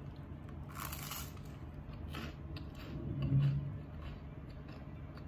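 Bites and chewing of crisp, sugar-buttered toast: a loud crunch about a second in, another about two seconds in, then small crackles of chewing. A brief low hum of the voice comes about three seconds in.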